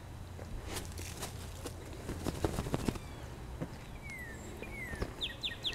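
Footsteps crunching in snow, a run of irregular crunches in the first three seconds. Then a bird gives two falling whistled notes, and near the end it starts a fast trill of repeated down-slurred notes, about five a second.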